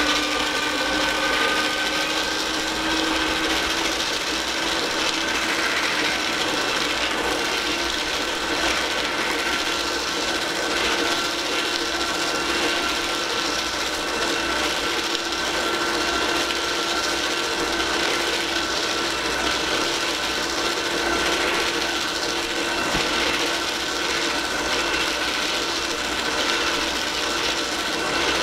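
Small electric paper shredder running steadily, its motor whining as the cutters grind through a long strip of fanfold paper being pulled into them.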